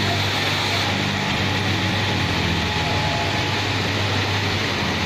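Steady drone of garment-factory cutting-room machinery: a low motor hum under a constant wash of noise, with no breaks or single knocks.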